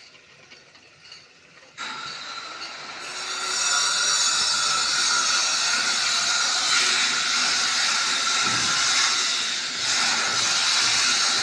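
A loud, steady hiss that starts about two seconds in and gets louder about two seconds later, then holds.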